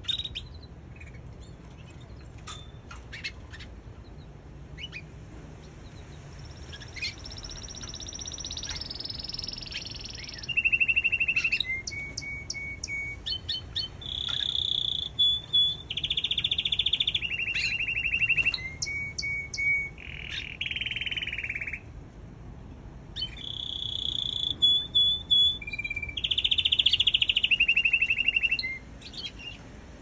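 Domestic canary singing: scattered short chirps at first, then a long run of rapid trills, each held on one pitch for a second or two and switching between higher and lower notes.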